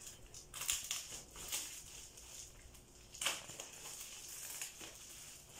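Plastic bubble wrap crinkling and rustling as it is cut and pulled open with a small blade, irregular, with a sharper crinkle about three seconds in.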